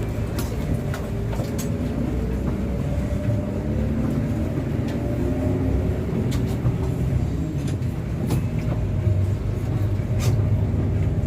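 Bus diesel engine running, heard from inside the cabin, its pitch drifting slightly up and down, with scattered sharp ticks.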